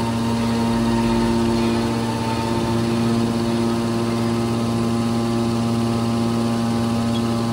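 Hydraulic scrap metal baler's electric motor and hydraulic pump unit running steadily, a constant machine hum with several steady tones.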